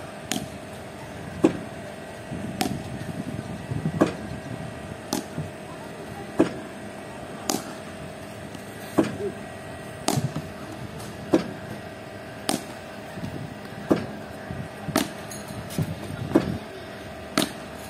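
A bowling machine delivering tennis balls to a cricket bat, a sharp knock about every second and a bit as balls are fired and driven, over the steady hum of the machine's motor.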